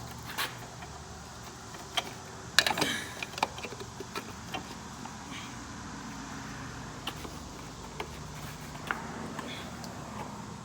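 Light clicks and knocks of a Jeep's front grille being handled and fitted, a few scattered over several seconds and bunched about two to three seconds in, over a steady low hum.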